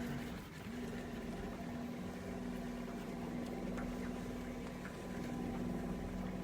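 Electric trolling motor running steadily, a constant whine with the propeller churning water as the fishing boat is eased into a new position; the hum drops out briefly in the first second, then carries on.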